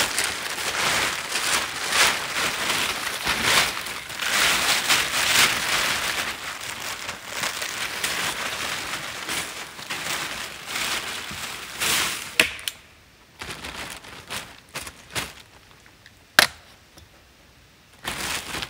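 Plastic tarp sheeting rustling and crinkling as it is handled and pulled into place, dense for about twelve seconds, then quieter with a few sharp snaps or clicks.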